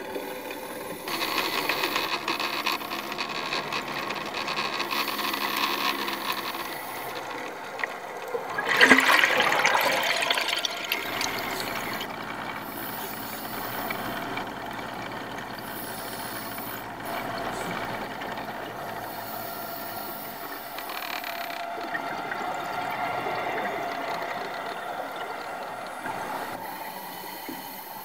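Underwater scuba-dive sound through the camera: rushing and bubbling from divers' exhaled air, swelling and fading every few seconds. The loudest surge comes about nine seconds in.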